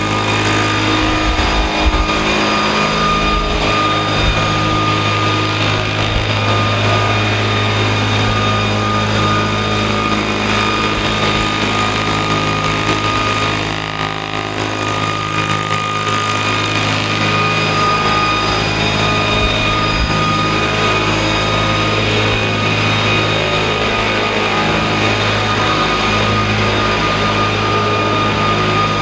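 Large scale RC model of a Boeing-Vertol CH-47 Chinook flying: its tandem rotors and drive running with a steady hum and whine, dipping slightly about halfway through.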